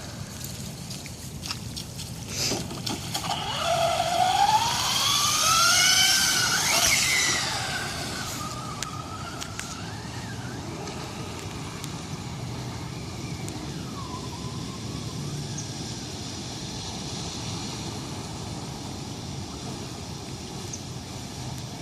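Traxxas Slash RC truck's motor whining as the truck speeds up and slows, rising and falling in pitch, loudest about four to seven seconds in, then fainter and farther off.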